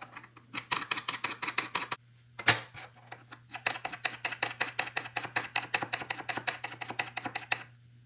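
Steel knife blade rubbed back and forth by hand on a diamond sharpening plate, short rasping strokes at about five a second in two runs, with a pause and a single sharp click about two and a half seconds in. The blade's lock-engagement point is being ground down so the ram lock can travel fully forward.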